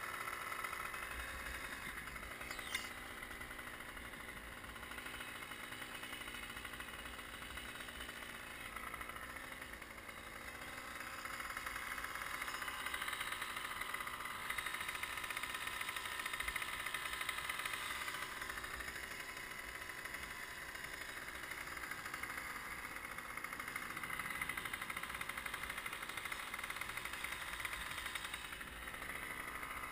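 Engine of a truck-mounted aerial work platform running steadily, heard from up in the basket, a little louder for several seconds in the middle. A single sharp click about three seconds in.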